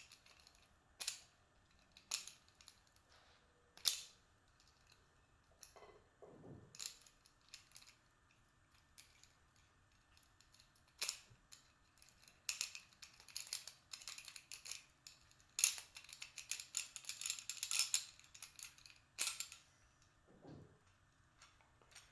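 Steel rake pick and tension tool scraping and clicking in the keyway of an Abus 24/70 disc padlock as its pins are raked: a few separate light clicks at first, then a long run of rapid scraping clicks in the second half.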